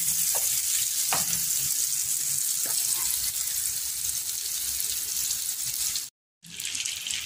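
Butter melting and sizzling in hot oil in a frying pan, a steady hiss that cuts out completely for a moment about six seconds in.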